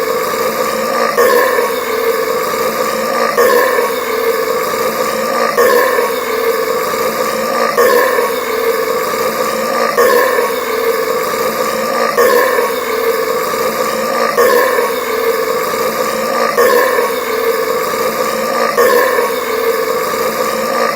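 A man burping loudly after drinking carbonated Sprite Cranberry soda, one long burp repeating without a break, swelling about every two seconds in the same way each time, like a loop.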